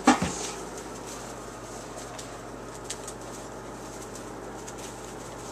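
A puppy's short yelp at the very start, dropping in pitch, followed by faint scratching and rustling of puppies moving about on wood shavings.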